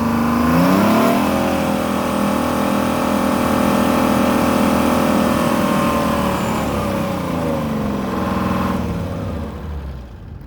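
Detroit Diesel 6-71 two-stroke diesel engine revved up, held at high revs for several seconds, then let fall back toward idle near the end, its Roots blower whining over the engine note.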